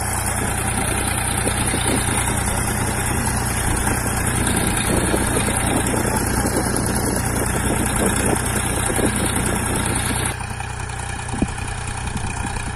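Swaraj 744 FE tractor's three-cylinder diesel engine running steadily as it pulls a sugarcane planter. About ten seconds in the sound drops slightly and turns duller, the tractor now heard from further off.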